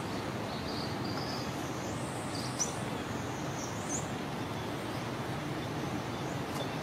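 Steady outdoor background hiss, with a few faint, short high-pitched chirps about half a second in, around two and a half seconds in, and near four seconds.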